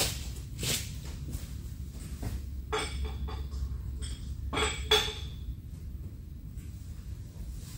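Spanner clinking on the lathe's steel leveling screws as they are adjusted: a few sharp metallic clinks with a short ring, the loudest about five seconds in.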